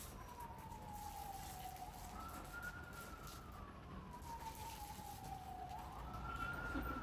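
A faint wailing siren: a single tone that climbs quickly and then sinks slowly, in repeating cycles about three and a half seconds long.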